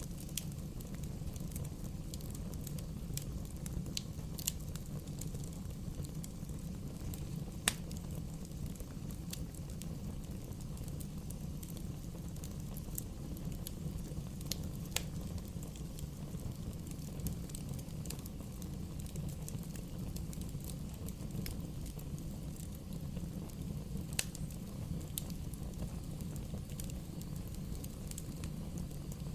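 Wood bonfire burning: a steady low rush with scattered sharp pops and crackles, the loudest about eight seconds in.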